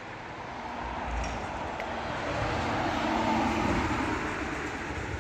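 A vehicle passing by, its noise swelling to a peak about three seconds in and then fading.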